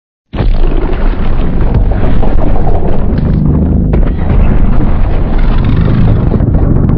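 A designed giant-monster sound effect: after a moment of silence, a loud, deep, rumbling blast of noise starts suddenly and holds for about seven seconds.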